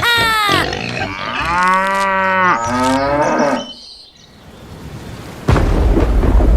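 Cattle mooing: a short falling call, then a long call and a shorter one. About five and a half seconds in, a loud low rumble sets in.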